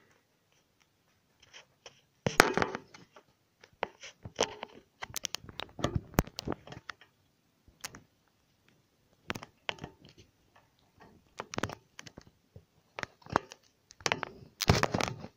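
Handling noise from a smartphone being picked up and set back in place: irregular clicks, knocks, scrapes and rustles right against its microphone, loudest about two seconds in and again near the end.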